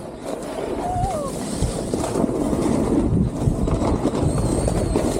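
Snowboard sliding over packed snow, its base and edges scraping with low bumps and chatter, and wind rushing over the camera microphone, growing louder about a second and a half in as speed picks up.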